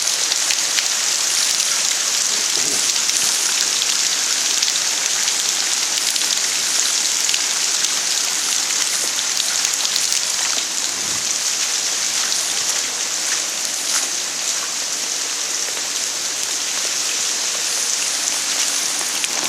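Heavy downpour of thunderstorm rain: a steady, dense hiss of falling rain with the fine ticks of individual drops hitting surfaces.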